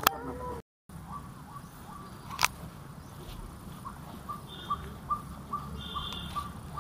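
A bird repeating one short call note, a little over two a second, over a low steady outdoor background, with a single sharp click about two and a half seconds in.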